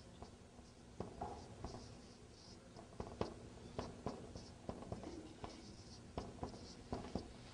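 Marker pen writing on a whiteboard: faint short strokes and small taps as words are written out.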